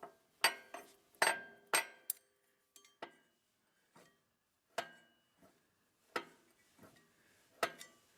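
Sharp metallic clinks and clanks at irregular intervals, some ringing briefly: metal parts of a chain hoist's mechanism knocking against each other as it is worked.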